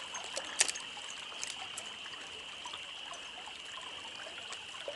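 Stream water trickling and running steadily, with a sharp click about half a second in and a few fainter clicks after it.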